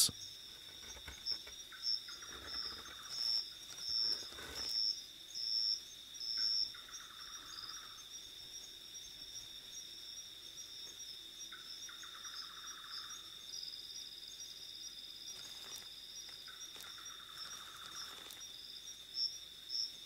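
Night-time rainforest insects: a steady high-pitched trill with a pulsing chirp above it, and short rattling trills every few seconds. There are several sharp knocks and scrapes in the first few seconds and one more later on.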